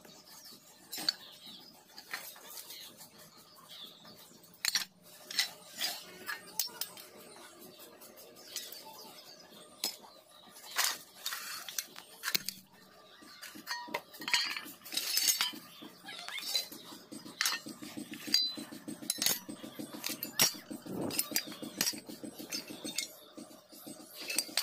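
Pieces of rusty scrap steel clinking and clanking as they are picked up and shifted in a scrap pile: irregular sharp metal knocks and scrapes.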